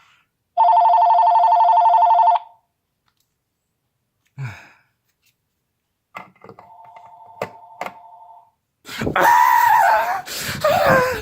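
A telephone ringing: one loud trilling ring of about two seconds, a short thud, then a quieter ring with a few clicks over it. Near the end a loud, noisy sound with a wavering, falling pitch takes over.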